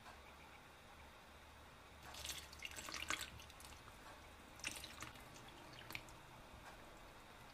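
Milk poured from a glass cup onto a whole cabbage in a pot. It splashes for about a second starting two seconds in, gives shorter splashes near the middle, and ends in a few dribbles and drips.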